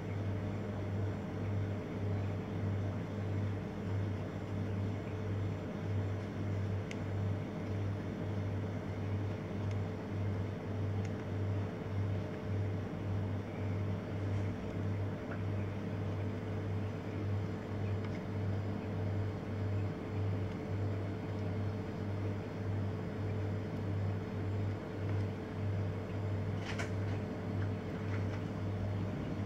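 Steady low mechanical hum that pulses evenly about twice a second, with a faint steady whine above it. A couple of light clicks come near the end.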